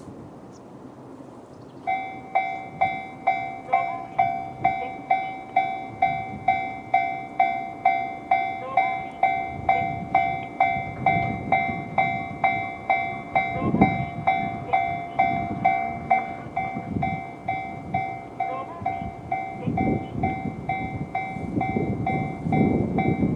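Japanese railway level-crossing warning bell, the JR standard electronic tone, starts about two seconds in and rings steadily at a little under two strokes a second. Near the end a low rumble builds under it as a train approaches.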